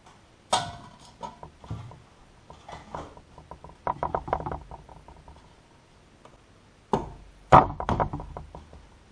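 Sharp knocks, clicks and rattles of ceiling fan parts being handled. There is a quick run of clicks about four seconds in, and two loud knocks near the end.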